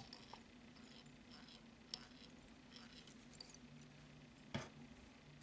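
Near silence: a low steady hum with a few faint ticks as tying thread is wound from a bobbin onto a fly hook held in a vise. The sharpest tick comes right at the start.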